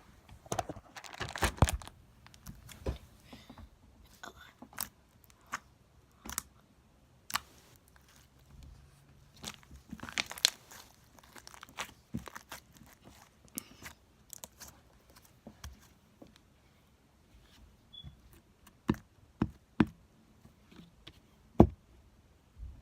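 Homemade slime squished, stretched and pressed by hand, making irregular sticky pops, clicks and crackles, denser about a second in and around the middle, with one sharper pop near the end.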